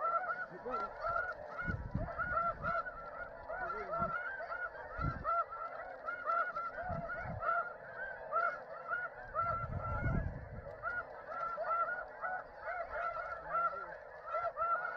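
Snow geese calling: a constant din of many short, high, overlapping honks. A few low bumps break in irregularly.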